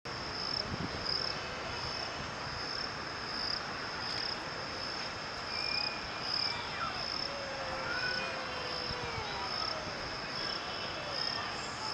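An insect chirping high and steadily in an even pulsing rhythm, about three pulses every two seconds, over a faint outdoor hiss.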